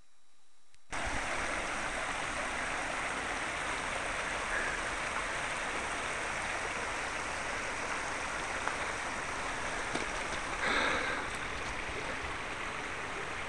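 Fast-flowing river rushing steadily, an even noise of running water, with a brief louder sound near the end.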